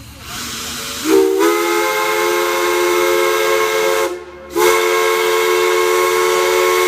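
Large multi-chime whistle blown twice. A hiss comes first, then a loud chord of several tones that slides up briefly as it opens and holds for about three seconds. It breaks off for half a second and then sounds again.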